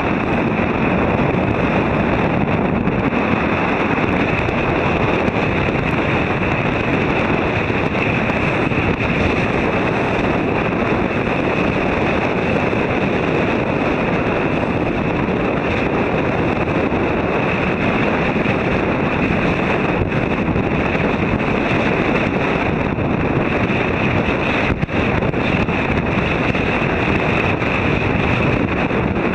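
Strong wind buffeting the microphone in a steady loud rush, mixed with the wash of choppy water and spray from a boat under way at sea.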